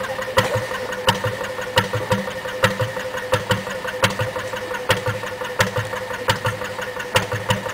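Old narrowboat's engine running slowly at tickover, a heavy thud a little more often than once a second with lighter knocks between and a steady hum under it.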